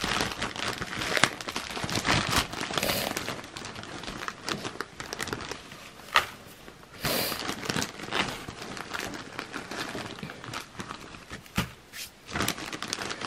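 Loose wood-shaving bedding rustling and crackling as it is tipped into a plastic cage tray and spread out by hand, with a few brief louder bursts.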